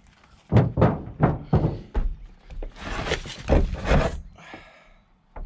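A run of heavy thuds and knocks on a small Geo car's sheet-metal body as a man climbs up and stands on its roof, about eight to ten in quick succession, fading out near the end.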